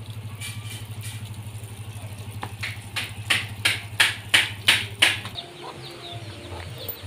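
A hen cackling: a run of about eight loud, short clucks over some two and a half seconds. Under it a motor scooter engine idles with a steady low hum, then cuts off about five seconds in.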